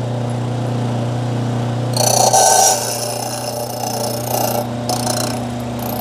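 Key duplicating machine's electric motor running with a steady hum while a Kwikset KW1 key is copied. About two seconds in the cutter wheel starts cutting the blank, a high grinding hiss that comes and goes as the key is guided along the cutter.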